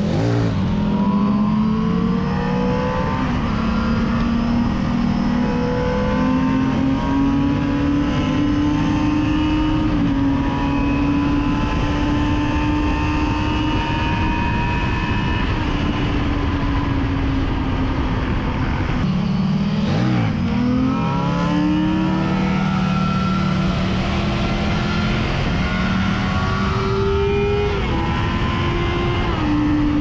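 Yamaha FZ6's inline-four engine running at high revs under way, heard from the rider's seat over steady wind noise. The revs climb near the start, hold fairly steady, then drop briefly about twenty seconds in and climb again.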